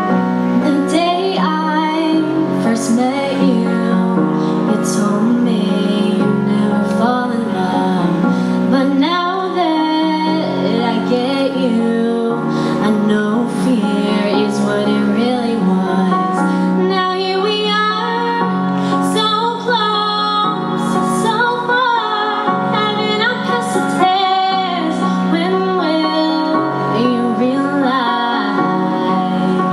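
A woman singing a pop song live through a microphone, over backing music of sustained, held chords.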